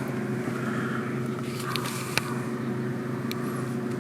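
Opel Corsa Easytronic engine idling steadily, heard from inside the car, with a few light clicks about halfway through.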